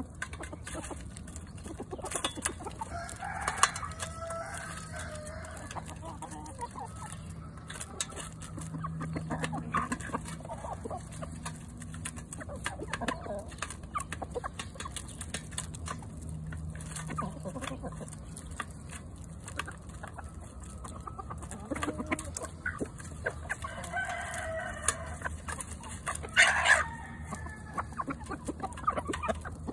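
A flock of chickens clucking and calling while feeding, with a rooster crowing, over a constant patter of sharp clicks as their beaks peck crawfish shells against a stainless steel pan.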